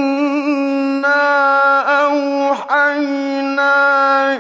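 A male Quran reciter chanting in the melodic mujawwad style, holding long drawn-out notes with a wavering vibrato and a few brief dips in pitch.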